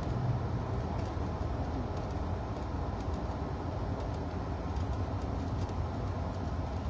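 Steady low rumble and road noise of a moving vehicle, heard from inside its cabin.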